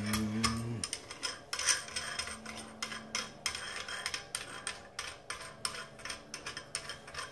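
Small metal tripod parts clinking and scraping in the hands, irregular light clicks that come thick and fast, as hardware and a washer are worked off the steel tripod's central rod.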